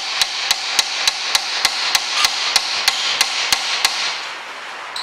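Quick, evenly paced hammer blows on the end of an old screwdriver, about three a second, stopping about four seconds in. The screwdriver is seated in a seized Phillips screw that holds the brake disc to a Land Rover Freelander's front hub, and the blows are struck while the screwdriver is turned to break the screw loose.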